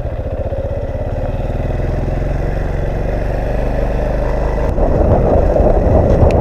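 Motorcycle engine running at low speed with an even pulse, rising slowly. About five seconds in it gets louder and rougher as wind rushes over the microphone.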